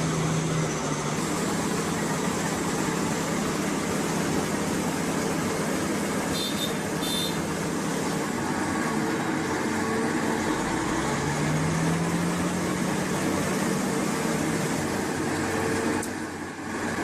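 A heavy engine running steadily, with a constant low hum. Two short high tones sound about six and a half seconds in, and the sound dips briefly near the end.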